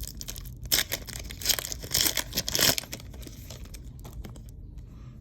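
Trading card pack wrapper being torn open and crinkled, in a cluster of rustling tears during the first three seconds, then softer handling.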